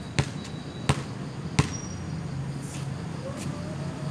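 A volleyball bounced on a concrete court three times at an even pace, each bounce a sharp smack about two-thirds of a second apart, followed by two fainter knocks.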